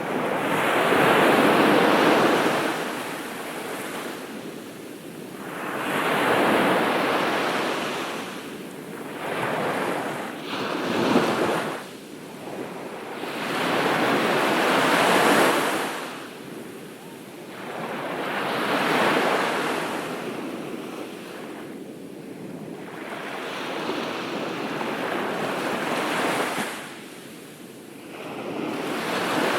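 Ocean surf breaking on a beach, each wave swelling up and washing back out, about every four to five seconds.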